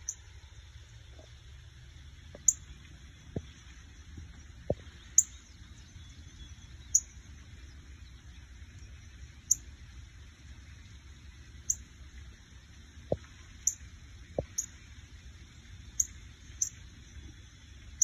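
Northern cardinal giving sharp, high chip calls, about a dozen single chips spaced a second or two apart, over a steady low hum.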